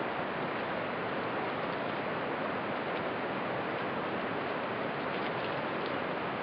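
Steady, even hiss of noise, with a few faint ticks about five seconds in.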